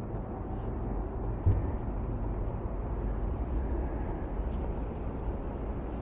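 Steady low outdoor background rumble, with one faint knock about one and a half seconds in.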